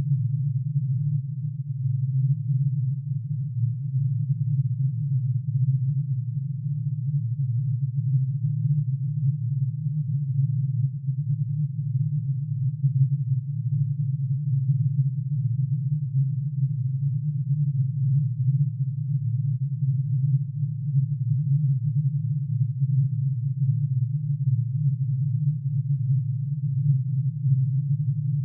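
Synthesized drone made of many summed sine tones, plutonium's atomic emission spectrum with each spectral line as one pitch-shifted sine wave. It is a steady, low, dense hum that wavers slightly in loudness and does not change over time.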